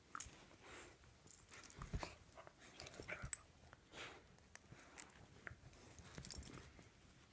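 Two small dogs play-wrestling: faint dog sounds, panting and mouthing, mixed with scuffling on bedding and scattered light clicks.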